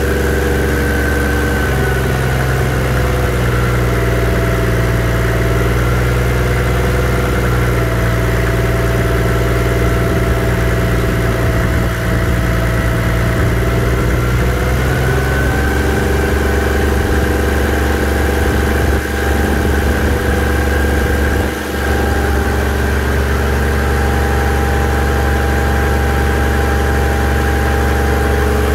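Toyota 1HZ 4.2-litre inline-six diesel, freshly rebuilt, idling steadily while it is run up to temperature. Its idle pitch shifts slightly about two seconds in and again about fifteen seconds in.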